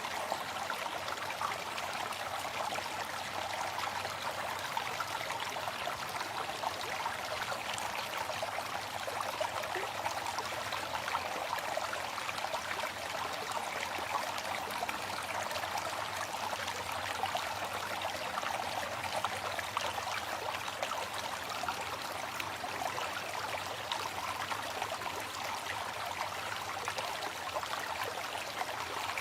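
A waterfall's falling water making a steady, even rushing sound with no change.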